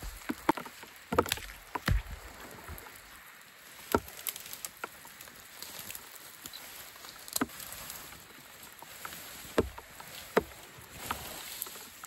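A long dead tree pole dragged through dry fallen branches and brush: twigs and branches crack and snap at irregular moments, with scraping and rustling in between.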